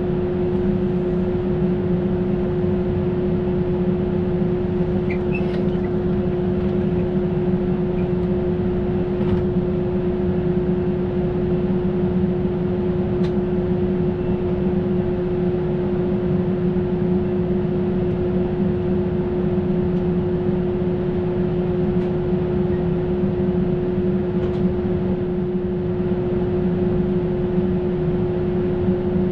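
Steady machine hum of a stopped Amtrak passenger train, heard from inside its rear car, with one constant tone over a lower rumble and a few faint clicks.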